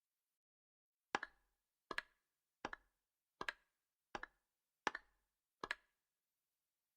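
A sound effect of seven short, sharp double clicks, evenly spaced about three quarters of a second apart, starting about a second in and stopping near the end.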